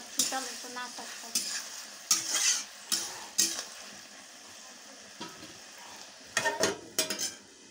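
Chopped vegetables sizzling in a steel kadhai while a metal spatula stirs and scrapes against the pan. The sizzle dies down over the first few seconds, and a few louder metal clatters come near the end.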